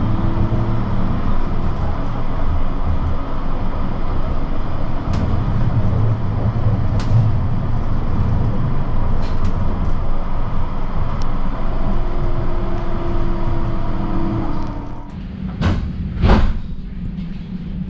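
NGT DXDD low-floor tram running, heard from inside the passenger compartment: a steady rumble of wheels on rails with a faint electric drive whine. Near the end it grows quieter and two loud knocks come less than a second apart.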